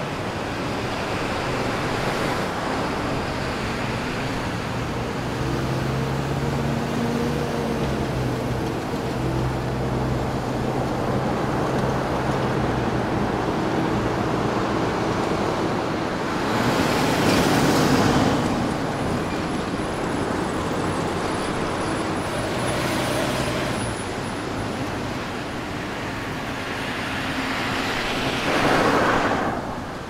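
Downtown city street traffic: a steady wash of engine and tyre noise, with engines humming low through the first half. Two louder vehicles swell up and pass, one a little past halfway and one near the end.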